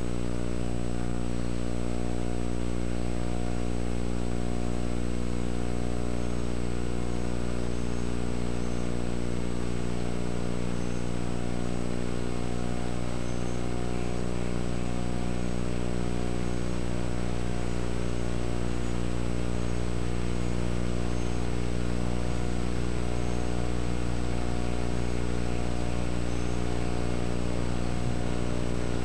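A steady, unchanging low hum with many evenly spaced overtones, holding the same level throughout.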